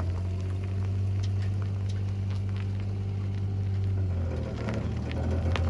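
Small kei mini truck's engine running steadily at low speed while towing a boat trailer, with scattered small ticks of tires rolling over gravel.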